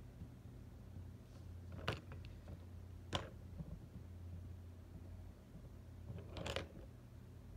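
Handling noise as colored pencils and paper are moved about on a desk: two sharp taps a little over a second apart, then a longer rustle near the end, over a steady low hum.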